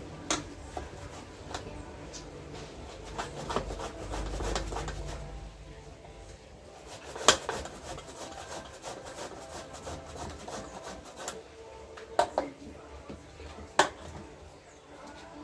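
Cassava root being grated by hand on a metal box grater, a continuous scraping of root against the grater's teeth, with several sharp clicks along the way.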